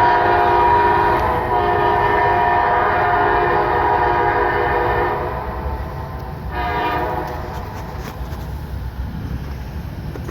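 Diesel locomotive air horn sounding a chord on a passing set of light engines: a long blast with a brief dip a little over a second in, ending about five seconds in, then one short toot just before the seven-second mark. Under it the locomotives' engines rumble and fade away after the horn stops.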